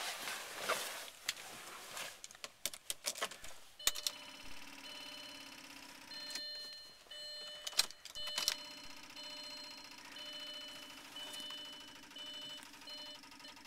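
Clicks and rustling, then a sharp click as the Audi's ignition is switched on. A dashboard warning chime beeps on and off at a high pitch, with a few more key clicks and a low electrical hum; no engine cranking is heard.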